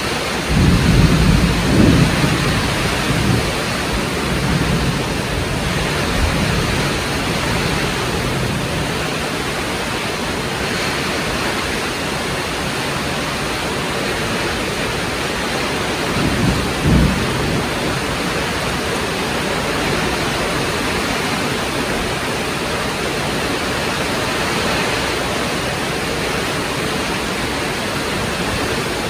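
Heavy rain falling steadily, with low rumbles of thunder near the start and again about halfway through.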